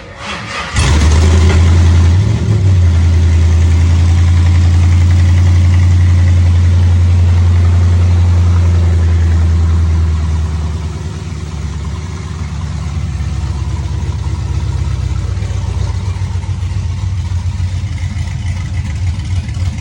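LS V8 in a 1967 Camaro firing up on a cold start after about four months sitting. It catches just under a second in and runs at a loud, fast cold idle. About ten seconds in, the idle drops and settles quieter and lower.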